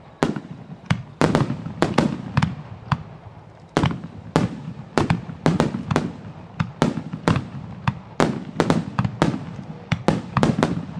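Aerial firework shells bursting in quick succession: sharp bangs, about two a second at irregular spacing, each trailing off in echo.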